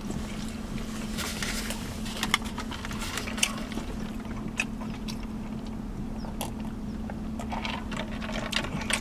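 Sipping from a styrofoam cup and chewing: scattered small mouth clicks and smacks over a steady low hum inside the truck cab.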